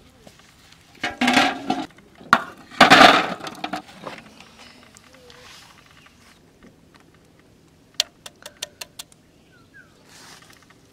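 Hard-boiled eggs tipped with their water from a slotted skimmer into a steel bowl, clattering against the metal twice, about one and three seconds in. About eight seconds in, a quick run of small sharp cracks as an eggshell is cracked for peeling.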